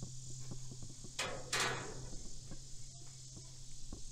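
Insects chirring in a steady high drone, with a brief rustling swoosh about a second and a half in.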